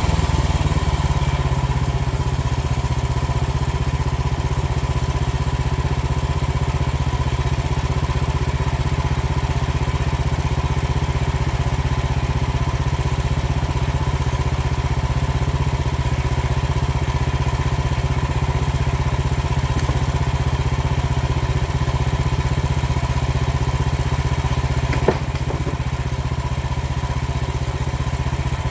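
Frontier portable band sawmill's engine running steadily while milling a log. A single sharp knock comes near the end.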